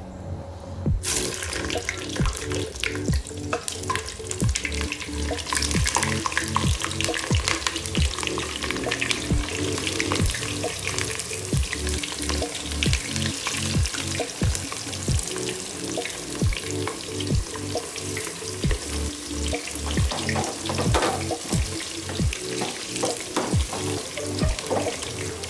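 Stuffed karela (bitter gourds) frying in hot oil: a steady sizzle that starts about a second in, with many crackles and pops throughout.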